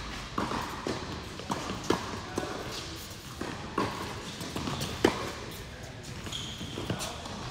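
Tennis rally on an indoor hard court: sharp racquet-on-ball strikes and ball bounces, one every second or so, with the players' footsteps between them.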